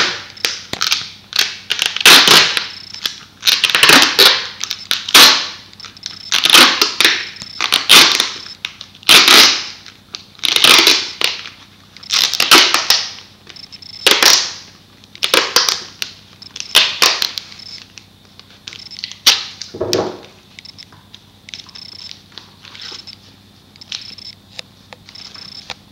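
Duct tape being ripped off the roll in short, loud pulls, about one a second, as it is wrapped onto a foam sword. The rips stop about two-thirds of the way through, leaving a few quieter taps and rustles from handling.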